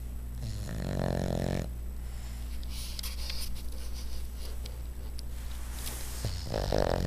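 Boston terrier snoring in its sleep: one long snore about half a second in, lasting over a second, and another starting near the end, with faint snuffling breaths between.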